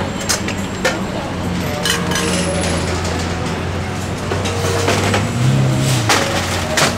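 Metal spatula knocking on a roti griddle, a handful of sharp clinks at irregular spacing, over a steady low hum of street traffic.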